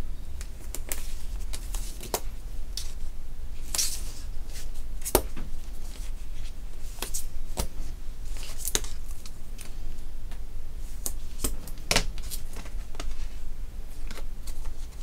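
Double-sided tape pulled from its roll and torn off, its backing paper peeled, and card stock handled and pressed down: intermittent ripping and crinkling with scattered taps.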